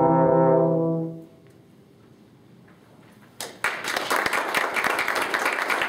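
A trombone and a second brass instrument hold a final note together, which cuts off a little over a second in and rings briefly in the room. After about two seconds of quiet, an audience breaks into applause, which continues.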